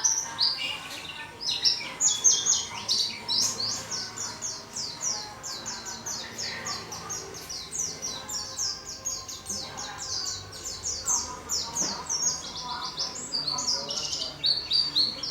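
Caged white-eye (pleci) singing a long, fast song of high, quick downward-sweeping notes, running on almost without a break.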